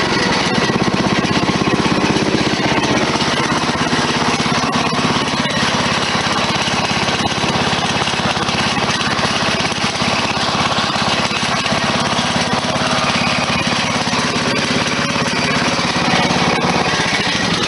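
Lawn mower engine running steadily, with a fast, even, rattly firing beat.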